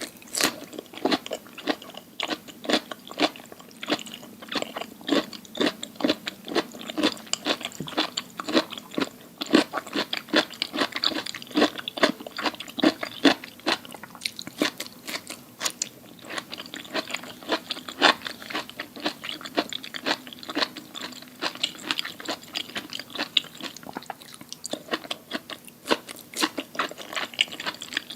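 Close-miked person chewing crunchy food, a steady run of crisp crunches, about three a second.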